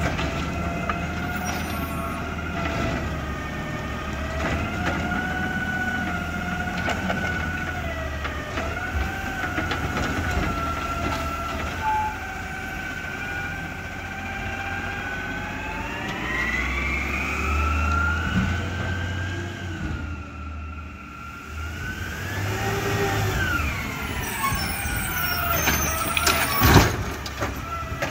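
Peterbilt 320 CNG side-loader garbage truck running, with a whine in several tones that rises and falls in pitch with the engine as the automated arm and packer work. A sharp bang comes near the end.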